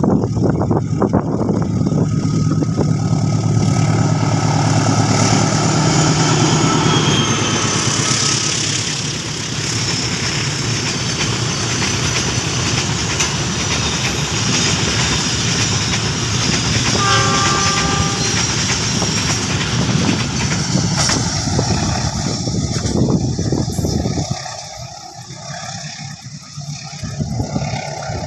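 Diesel-electric locomotive passing close at speed, its engine running heavily and its horn held for several seconds. A long freight train of loaded flatcars follows, the wheels clattering over the rail joints. About 24 seconds in the train sound drops away abruptly to much quieter background noise.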